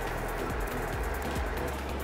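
Background music with a steady beat: even high ticks over sustained low bass notes.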